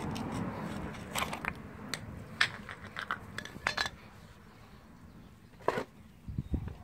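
A metal tool prying the cap off a VW Golf Mk4 rear shock absorber's top mount: a run of sharp clicks and scrapes over the first few seconds, then one more click a couple of seconds later.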